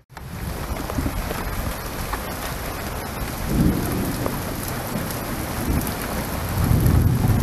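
Steady rain falling, an even hiss, with low rumbles about three and a half seconds in and again near the end.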